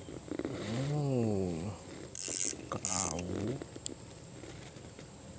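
Fishing reel being worked, with two short, loud bursts of mechanical ratcheting a little past the middle. A hum that rises and falls in pitch comes before and between them.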